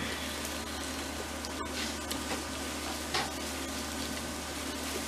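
Quiet eating sounds: chewing, with a few soft clicks and rustles as hands work at snow crab legs in a plastic boil bag, over a steady low hum.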